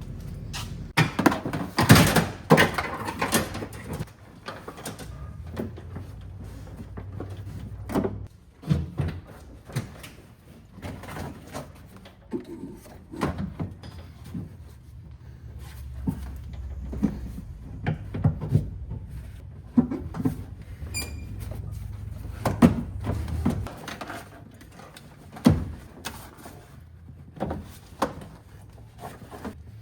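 Irregular knocks, clunks and rattles of car interior parts being handled and fitted, loudest about two seconds in, over a steady low hum.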